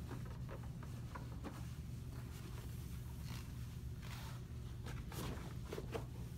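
Bed sheets rustling and shoes scuffing as a hospital bed is made, a few short rustles from about halfway on, over a steady low hum.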